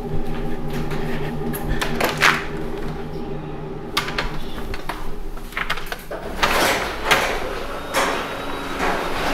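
Scattered knocks, clunks and rustling from a handheld camera being moved around indoors, over a steady low hum.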